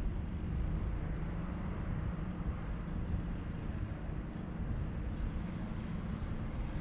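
A Fairchild C-123 Provider on approach to land, its two Pratt & Whitney R-2800 radial piston engines giving a steady low drone.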